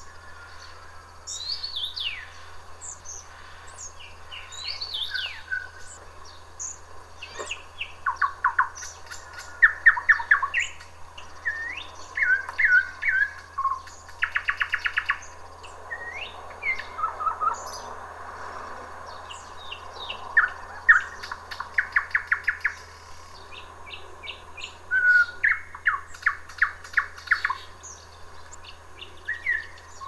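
Nightingale singing in repeated phrases: fast, rattling trills of the same note repeated, mixed with sliding whistled and chirping notes, with short pauses between phrases.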